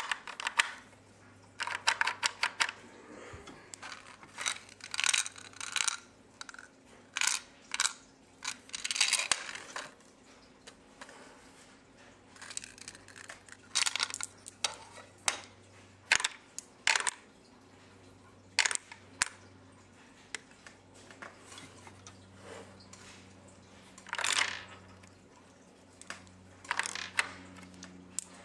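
Hard plastic clicking and clattering from a homemade Lego gumball machine being worked by hand, with gumballs knocking against the Lego bricks, in scattered bursts of quick clicks and rattles throughout. A faint steady hum lies underneath.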